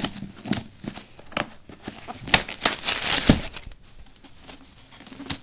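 Cardboard box packaging being handled and pulled at: irregular rustles, scrapes and knocks, busiest around the middle.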